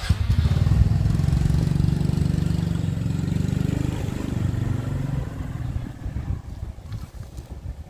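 Motorcycle engine running close by, rising slightly in pitch over the first few seconds, then fading away.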